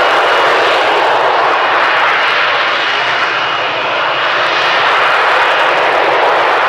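F-35B stealth fighter hovering, its F135 jet engine and lift fan giving a loud, steady rush of jet noise with a faint high whine running through it. The whole weight of the aircraft is held up on engine and lift-fan thrust.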